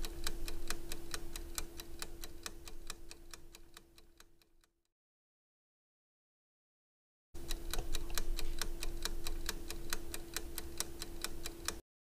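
Countdown timer sound effect: clock-like ticking, about four ticks a second, over a steady low tone. It fades out about four to five seconds in. After a gap of silence a second stretch of the same ticking and tone starts about seven seconds in and cuts off suddenly near the end.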